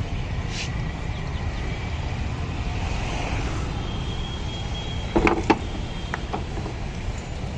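Steady low rumble of street traffic, and about five seconds in a quick clatter of glass goli soda bottles knocking together in the rack.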